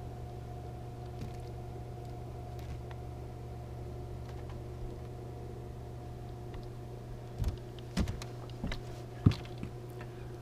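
Steady low hum with a few faint whining tones from the bass boat, heard through its mounted camera. From about seven seconds in come several sharp knocks and clicks on the boat as the caught bass and tackle are handled on the deck, the loudest about nine seconds in.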